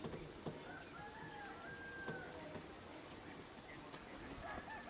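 Faint outdoor ambience: a steady high insect drone, with a few faint gliding calls and an occasional light click.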